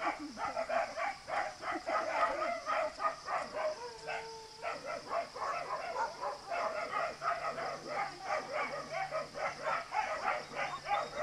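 Dogs barking rapidly and without pause, several barks a second, over a steady high-pitched hiss.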